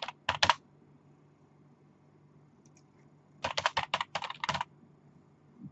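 Typing on a laptop keyboard: a short burst of keystrokes at the start and a quicker run of about eight keystrokes about three and a half seconds in.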